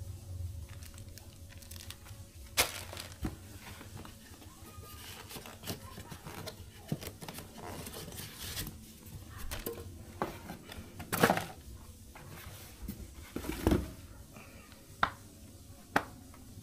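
Packaging being handled: plastic crinkling and rustling with scattered sharp clicks and knocks, the loudest about eleven seconds in.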